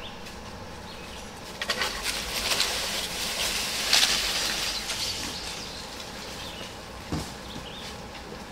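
A felled dead tree going over. The hinge wood cracks and pops, then a rush of branches and leaves rises to a peak about four seconds in as the tree crashes into the neighbouring crowns and hangs up there, and dies away. A single short crack sounds near the end.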